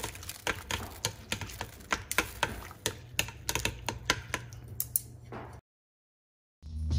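Wooden chopsticks clicking and tapping against the side of a stainless steel pot, irregularly several times a second, as egg noodles are separated in boiling water. The sound cuts off about five and a half seconds in, and music starts near the end.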